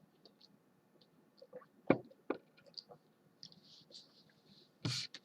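A few sharp clicks, the loudest about two seconds in, with faint soft hisses between them and a short, louder rustle near the end.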